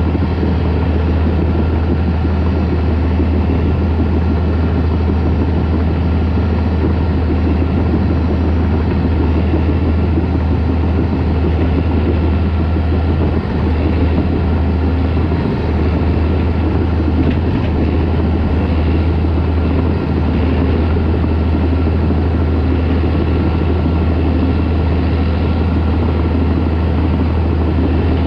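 Caterpillar D4 crawler tractor's diesel engine running steadily at working revs, a loud low drone with a few brief dips in the middle.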